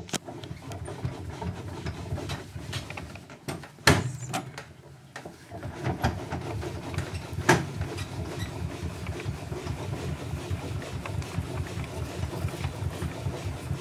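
Foot-pumped player piano running before its first notes: the bellows and air motor make a steady, fast chuffing as the paper roll winds on. A few sharp clicks stand out, loudest about four and seven and a half seconds in.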